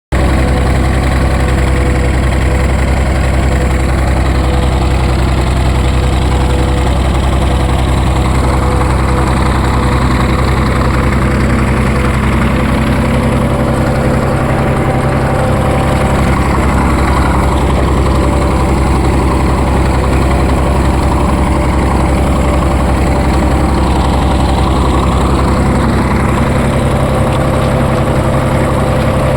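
Massey Ferguson tractor's diesel engine running steadily, with a slight shift in tone about halfway through.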